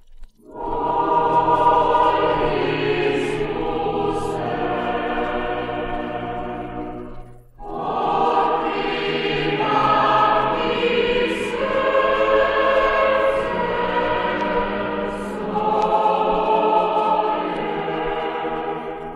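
A choir singing a Croatian sacred song in long held phrases, pausing briefly for breath about seven seconds in before the next phrase.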